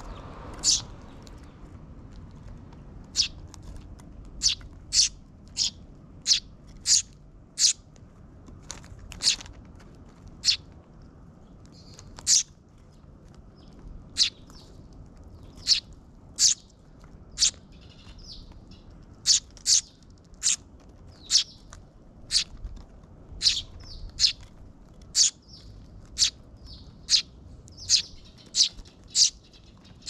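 Eurasian tree sparrows chirping: a long series of short, high chirps, about one or two a second, with a few brief pauses. These are a fledgling's begging calls to be fed by its parent.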